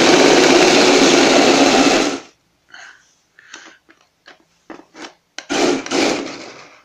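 Flytec amphibious RC stunt car's electric drive motors and gearing whirring loudly as it drives across a hard floor for about two seconds, then a few short clicks and blips, then another whirring burst about two-thirds of the way through that fades out. The owner judges the motors faulty.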